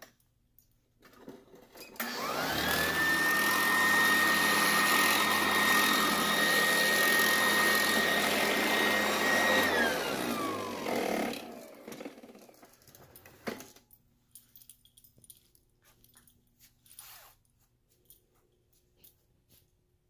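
Sanitaire commercial upright vacuum switched on about two seconds in. Its motor whine rises quickly to a steady high pitch and runs loud for about seven seconds. It is then switched off and winds down with a falling whine, and a single sharp knock follows a couple of seconds later.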